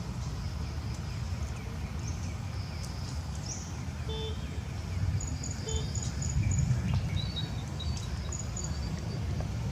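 Outdoor ambience: birds chirping in short high notes, mostly in the second half, over a steady low rumble. Two brief pitched calls come at about four and six seconds in.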